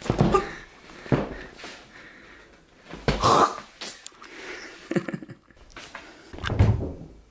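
A handheld phone being jostled: about five sudden bumps and rustles, mixed with breathy snorts and gasps.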